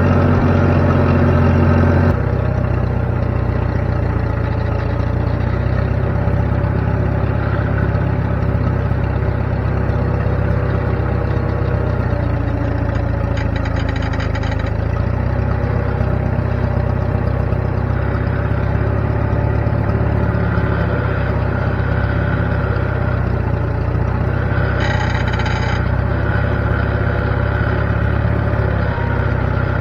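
Wood-Mizer LT20 band sawmill's engine running steadily while milling, its note shifting about two seconds in. Two brief high-pitched whines come over it, one around the middle and one near the end.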